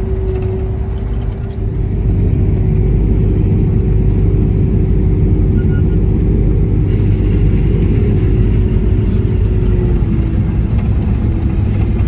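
Heavy diesel silage-harvesting machinery running steadily under load. A deep drone carries a constant whine that steps down slightly in pitch near the end, and the sound gets louder about two seconds in.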